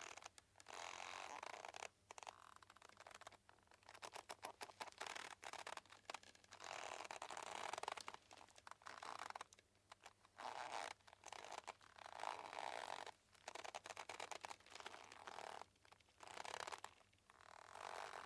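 A boat's ropes creaking and squeaking under strain as they stretch and rub. The creaks come in irregular stretches a second or two long with short pauses between, some of them stuttering into rapid clicks.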